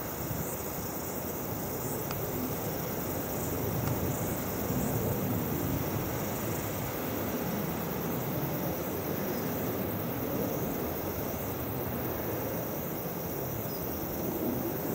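Outdoor ambience: a steady low rumble with faint, high insect chirping repeating over it. No falcon call is heard.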